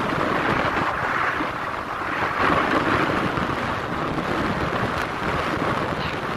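Steady wind noise rushing over the microphone of a camera on a moving vehicle, with the vehicle's road noise underneath.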